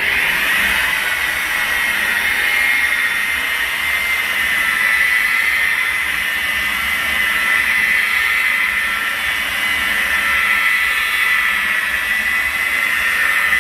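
Electric rotary polisher running steadily, its foam pad spreading polish over a car's paintwork: a constant high motor whine with a hiss.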